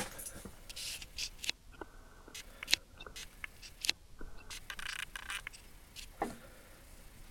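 Small hand tools being handled: a string of light clicks and taps with short scraping or rustling sounds in between.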